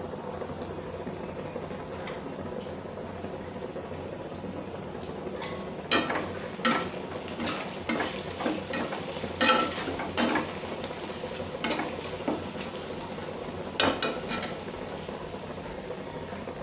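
Sliced onions frying in mustard oil in a kadhai, with a low steady sizzle, turmeric just added. From about six seconds in, a spatula stirs and scrapes against the pan in a run of clatters, dying away near the end.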